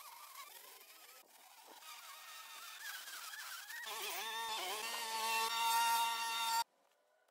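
Sped-up, pitch-raised motor sound of garden machinery: a string trimmer, then a lawn mower running with a steady high whine that grows louder and cuts off suddenly near the end.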